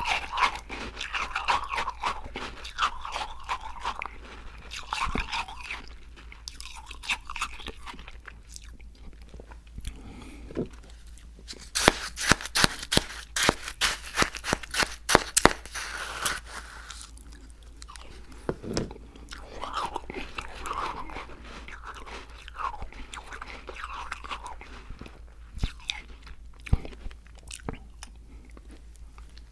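Close-miked chewing and crunching of icy slush, with wet mouth sounds and the crisp crackle of ice crystals being bitten; the crunching is loudest from about twelve to sixteen seconds in.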